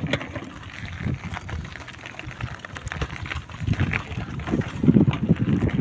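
Uneven low rumble of wind buffeting a handheld phone's microphone, swelling in gusts toward the end.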